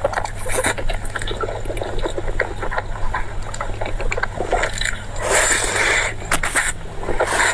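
Close-miked eating sounds: wet chewing with many small mouth clicks, and a louder noisy stretch about five seconds in.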